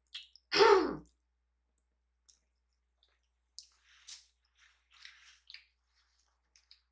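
Close-miked eating of spicy instant noodles: one short loud mouth sound about half a second in as the noodles go in, then quiet chewing with small mouth clicks and smacks.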